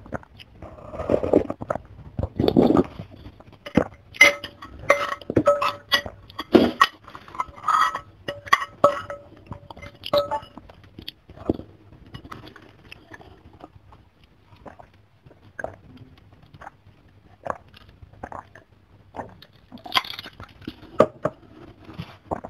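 Slurping soto broth and glass noodles for the first few seconds, then a metal spoon and fork clinking on the ceramic bowl with short ringing tones for about six seconds. Close-miked chewing and wet mouth clicks follow.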